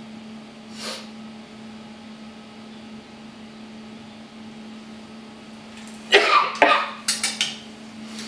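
Steady low hum in a laboratory, with a faint brief rustle about a second in. About six seconds in come two short, loud, rough bursts of noise, followed by a few sharp clicks.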